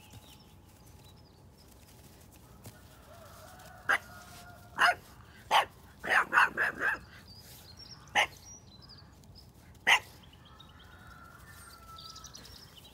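Small dog barking in short, sharp barks: three single barks about a second apart, then a quick run of five, then two more spaced barks.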